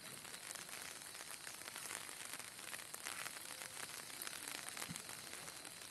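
Faint, steady water noise with scattered light crackles.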